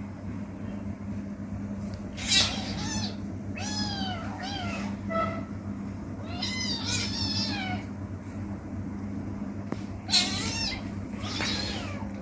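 Kitten meowing repeatedly, a string of short high-pitched meows that rise and fall in pitch, over a steady low hum.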